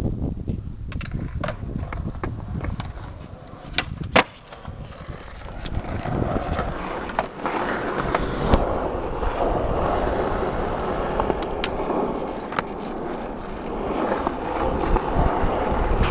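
Skateboard wheels rolling over concrete with a continuous rumble that grows heavier about six seconds in, broken by several sharp clacks of the board, the loudest about four seconds in and another about eight and a half seconds in.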